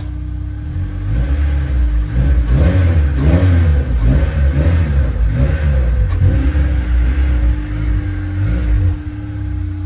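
Honda S2000 AP1's F20C four-cylinder engine running through a custom stainless cat-back exhaust: idling steadily, then revved in repeated throttle blips from about two seconds in, the pitch rising and falling each time, before settling back to idle near the end.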